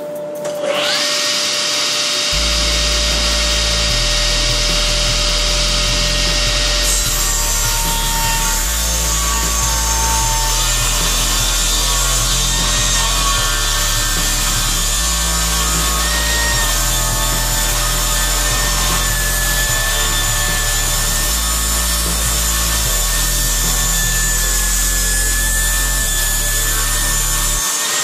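Sliding-table saw with a freshly sharpened CMT rip blade ripping a rough wooden beam along the grain: the blade's steady whine and the rasping hiss of the cut, which comes in loudly about a second in.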